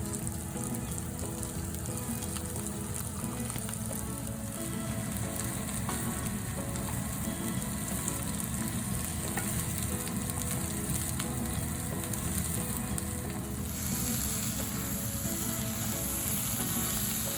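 Plant-based chicken stir-frying in a hot pan: a steady sizzle with stirring. The high hiss of the sizzle grows stronger about three-quarters of the way through.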